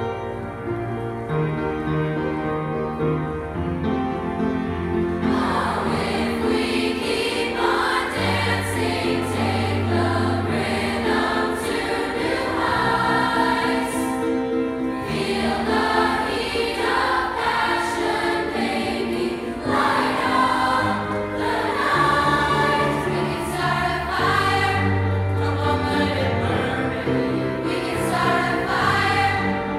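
Mixed youth choir singing in unison and harmony with piano accompaniment. For about the first five seconds the piano plays alone, then the choir comes in.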